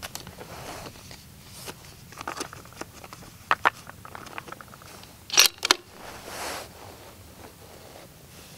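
Metallic clicks and clacks of a bolt-action rifle being loaded between shots: a cartridge handled from the ammo box and the bolt worked. There are two light clicks about three and a half seconds in, then a louder cluster of three clacks about five and a half seconds in. The rifle is not fired.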